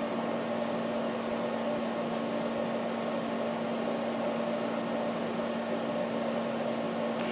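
Steady mechanical hum with a constant low tone, like a running fan or air conditioner, and a few faint, short, high chirps scattered through it.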